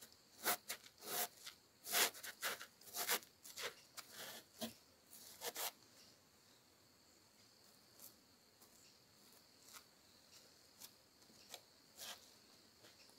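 Socked feet rubbing and shifting against each other and the wooden bench: a quick run of short fabric scrapes and rustles over the first six seconds, then only a few faint scuffs. A faint steady high-pitched hiss runs underneath.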